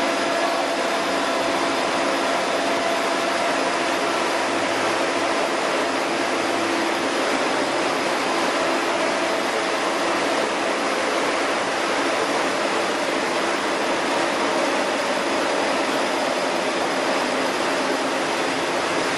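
Chili powder milling machinery running steadily: an even, loud rushing machine noise with a faint steady hum of a few tones underneath.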